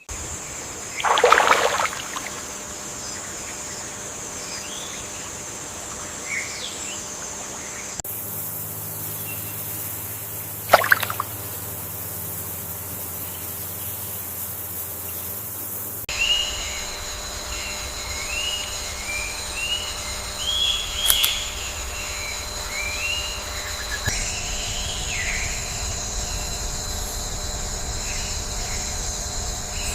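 Rainforest ambience: a steady high insect drone with bird calls, a stretch of rushing water hiss in the middle, and a run of quick repeated bird chirps later on. The sound changes abruptly about every eight seconds, as one recording is cut to the next.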